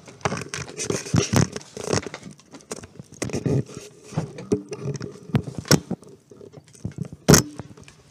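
Handling noise of a camera being picked up and repositioned: irregular rustling, scraping and clicks, with a sharp knock about seven seconds in.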